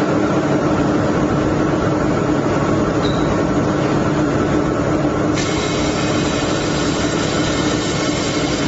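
Automatic fiber laser welding machine running with a steady hum. About five seconds in, a steady high hiss joins.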